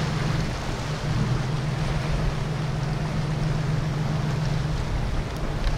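Motorboat engine running with a steady low drone, over the rush of water and wind.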